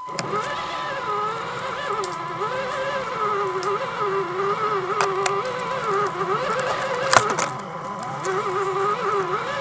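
RC monster truck's motor whining as it drives, the pitch rising and falling with the throttle, with one sharp knock about seven seconds in.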